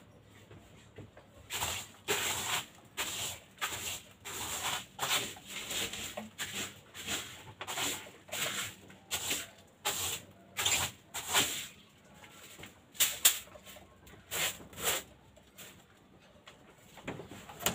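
Caged African lovebirds giving a long run of short, shrill chirps, about two a second, which stop a couple of seconds before the end.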